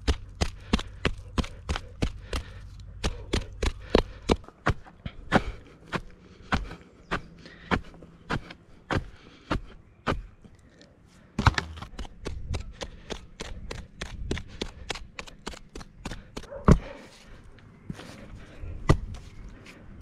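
Sharpened wooden sticks stabbing into dry, stony soil to dig a hole: a rapid series of sharp knocks, about three to four a second, slowing to about two a second. From about ten seconds in the strikes thin out to a few single hard knocks over scraping and rustling soil.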